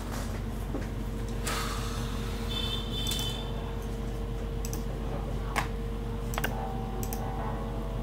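Steady low indoor hum, with a brief rustle and a few sharp clicks.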